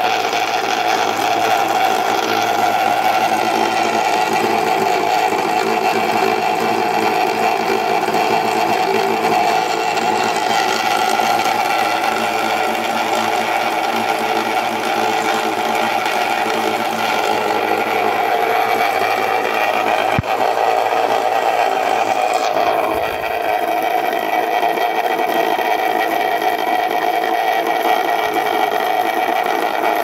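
Vintage 1970s Rolla-Matic toy washing machine running after its repair: its small electric motor whirs steadily as the drum and pulley wheel turn. A single sharp click about two-thirds of the way through.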